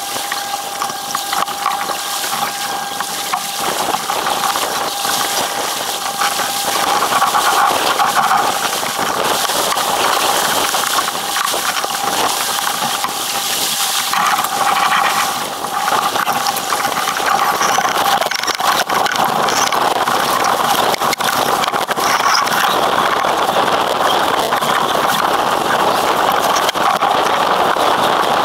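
Wind buffeting the microphone and water rushing along the hull of a sailing yacht under way: a loud, steady rushing noise that grows louder about eight seconds in.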